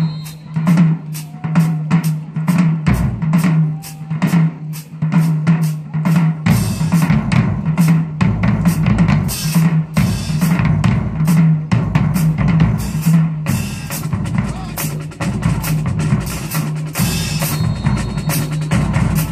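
College marching band drumline playing a fast drum cadence. Rapid, crisp strokes at first, with the bass drums coming in heavily about six seconds in and the full line drumming on together.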